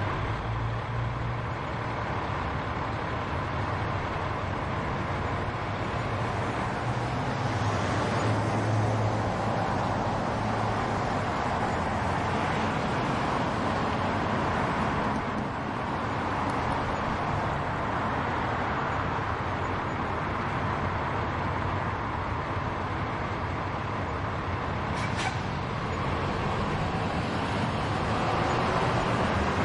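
Steady road traffic: the continuous tyre and engine noise of passing cars and buses, with low engine rumble swelling twice in the first ten seconds. A brief high squeak comes about 25 seconds in.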